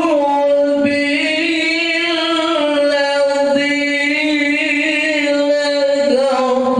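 A young man's voice reciting the Quran in a melodic chanting style, holding long notes with wavering ornaments and pausing only briefly for breath.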